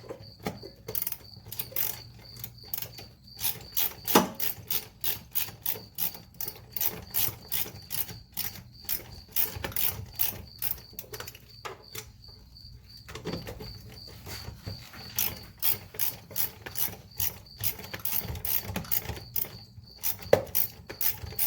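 Hand ratchet with a 10 mm socket clicking steadily as a bolt holding the fuse box is backed out: runs of clicks at about two or three a second, with a couple of short pauses and one louder knock about four seconds in. A cricket chirps steadily throughout.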